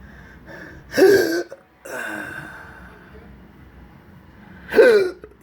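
A man hiccuping during a persistent intractable hiccup episode: two loud, short voiced hiccups about four seconds apart, with breathing in between.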